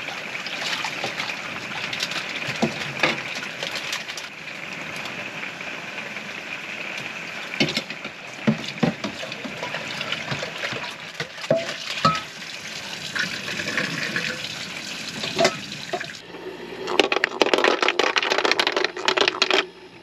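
Water running from a kitchen faucet into a small sink while a pot is washed, with scattered knocks and clinks of the pot and utensils. A louder stretch of rattling clatter comes in the last few seconds.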